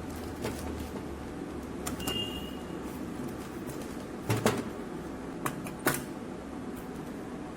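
Several sharp knocks and clicks, the loudest about four and a half seconds in, over a steady low hum, with a short high tone about two seconds in.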